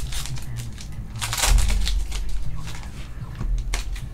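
Trading-card pack wrappers crinkling and rustling as packs are opened and cards handled, in irregular bursts with the loudest about a second and a half in.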